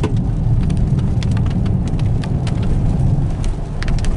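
Steady low road rumble inside a moving car's cabin, with scattered sharp ticks of raindrops striking the car.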